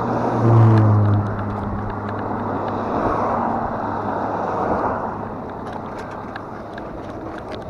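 Fat-tyre electric bike being ridden on a trail: wind rushing over the microphone and tyres rolling. A low hum with a few steady tones is heard through about the first second, and small ticks and crackles come from the ground near the end.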